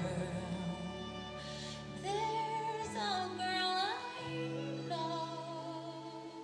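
Recorded show-tune ballad: a woman singing long, wavering held notes over sustained orchestral accompaniment.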